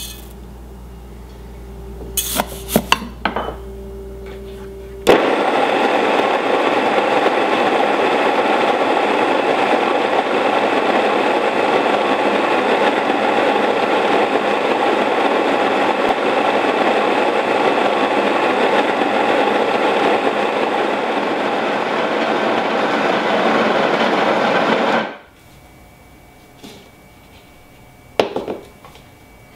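Electric stone grain mill grinding wheat into flour: a loud, steady grinding noise that starts suddenly about five seconds in and cuts off about twenty seconds later. A few light clicks come before it, and a short clatter near the end as the bowl of flour is handled.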